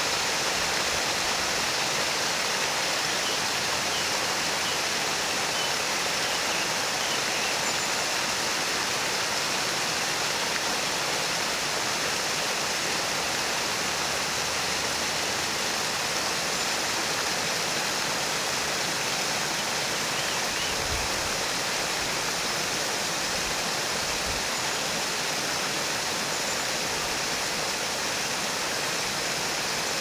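Water splashing down a tiered cascade of stone blocks into a pool, a steady, unbroken rush.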